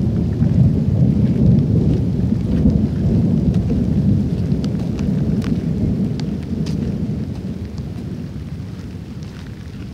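Storm wind buffeting the microphone in a heavy low rumble that eases off over the last few seconds, with scattered light ticks of rain.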